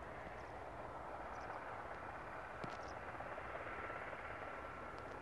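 Faint, steady rushing of a distant Airbus H125 single-turbine helicopter, with a thin high whine that grows a little clearer in the second half. A few faint high chirps sit above it.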